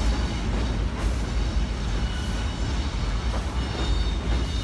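CSX unit grain train's covered hopper cars rolling across a steel elevated trestle overhead: a steady heavy rumble of wheels on the bridge, with a faint high wheel squeal in the second half.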